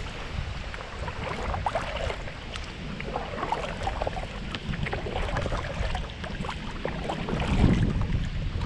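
Water splashing and trickling around a plastic kayak as it is paddled, with small crackling splashes throughout. Wind buffets the microphone, swelling into a low rumble near the end.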